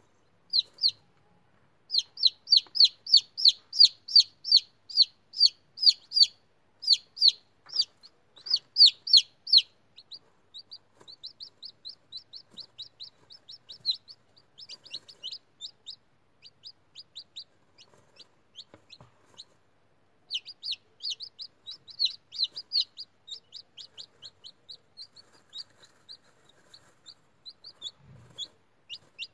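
Newly hatched chicken chicks peeping: a steady run of short, high, slightly falling peeps at about three a second, loudest in the first third and softer after that.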